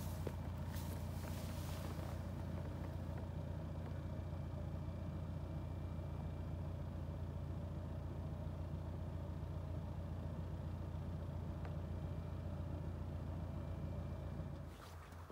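An engine running steadily at idle, a low, even drone that drops away near the end.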